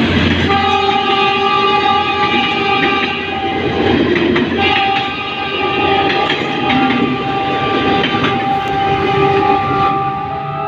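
Diesel-electric locomotive horn of PNR DEL 917 sounding two long blasts, the first about three and a half seconds long and the second about five seconds, over the steady rumble and clatter of the passing train.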